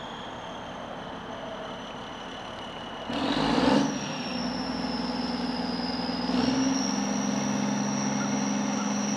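1986 Champion 740 grader's six-cylinder Cummins diesel running with a high whine. About three seconds in there is a short loud burst of noise, then the engine speeds up, and it steps up again a few seconds later.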